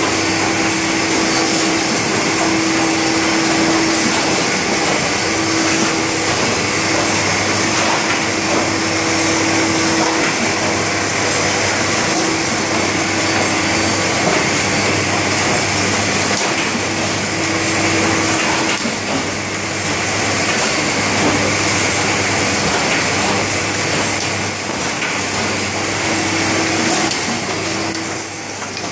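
Stahl BL 200 hardcover book-block line running in production: steady mechanical machine noise with a low hum and a tone that comes and goes.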